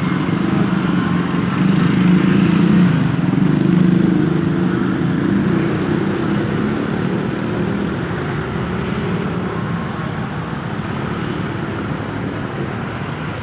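A road vehicle's engine running close by, loudest about two to four seconds in and then slowly fading as it moves off.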